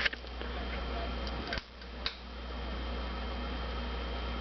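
Mainstays hugger ceiling fan running, a steady low hum from its motor, with a few light clicks.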